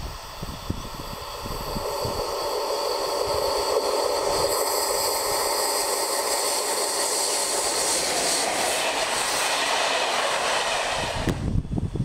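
ČD class 150 electric locomotive (150 203-8) and its passenger coaches running past: a steady rushing rail and wheel noise that builds as the train approaches and cuts off suddenly near the end.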